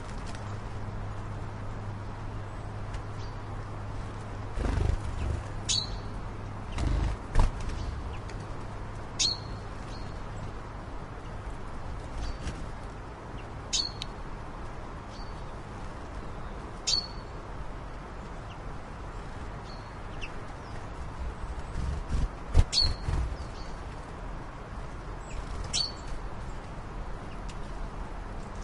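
Short bird chirps, one every few seconds, over a steady low hum, with a few dull low knocks partway through and again later.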